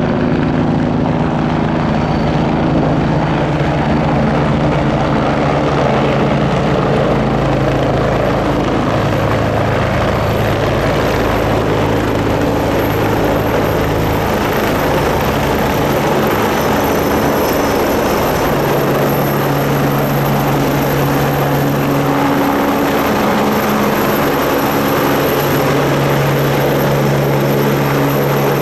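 Agusta A109S helicopter flying low with its rotor running steadily, powered by twin Pratt & Whitney PW207C turboshaft engines. The rotor noise is continuous and loud, with a low hum that shifts in pitch a few times and a thin high turbine whine above it.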